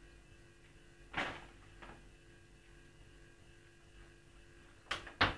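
Plastic cat-food bag rustling about a second in, then two sharp crinkles near the end as the bag is handled, over a steady electrical hum.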